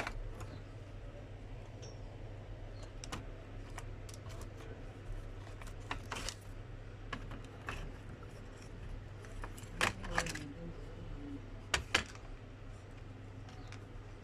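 Scattered light clicks and taps of small hard parts being handled, over a steady low hum, with a couple of sharper clicks about two-thirds of the way through.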